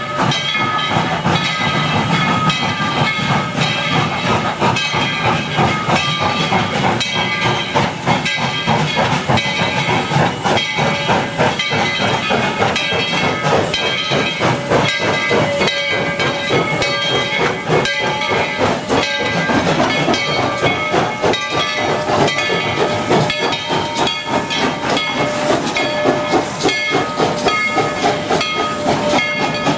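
Narrow-gauge steam locomotive hissing steam, with a rapid, irregular run of clanks and knocks and a few thin, steady high tones over it.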